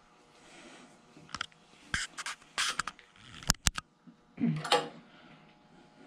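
A small metal hand tool scraping and clicking against the cast-iron frame of a Delta 14-inch bandsaw in a handful of short, irregular strokes, working off a burr. The sharpest clicks come a little past halfway, followed by one longer scrape.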